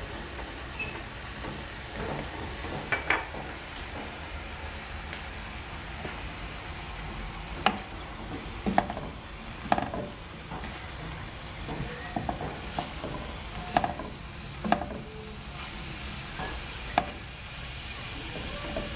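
Minced meat and grated carrots sizzling in olive oil in a frying pan while two wooden spatulas stir and turn them, with sharp knocks of the wood against the pan now and then, more often in the second half.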